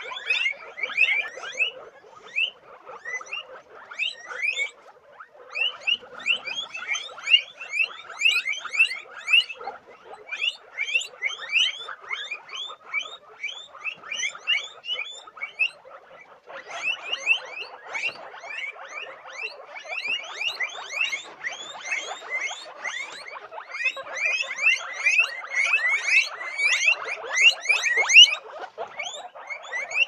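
A group of guinea pigs squeaking and chattering together: a dense stream of short, high squeaks over a lower, continuous chatter, thinning out briefly twice.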